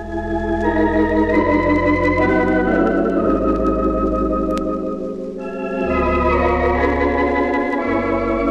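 Organ playing a slow hymn in sustained chords with a wavering vibrato over low bass notes. The chords change every second or two, with brief dips in loudness at the start and about five seconds in.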